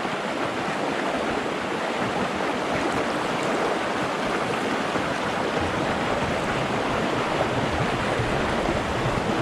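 Water from a spring run pouring steadily into the river, a continuous even rush.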